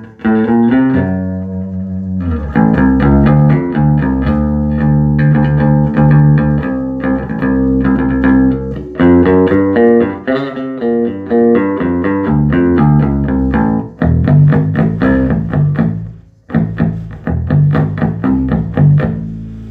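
Bass guitar played through a 1974 Ampeg B-15N tube bass amplifier, freshly recapped: a run of plucked notes and double-stops with a strong low end, pausing briefly twice near the end.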